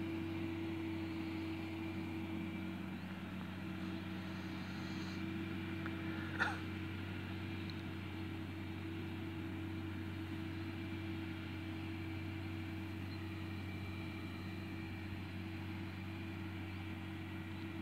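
Distant tractor engine running steadily as it pulls a land leveller across a field, heard as an even hum. One short, sharp sound stands out about six seconds in.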